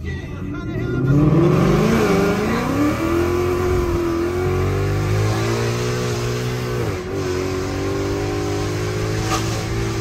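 2018 Ford Mustang GT's 5.0-litre V8 running on E85, heard from inside the cabin at full throttle from a standstill. The engine note climbs hard, with brief dips at the automatic's upshifts about two seconds in and again about seven seconds in.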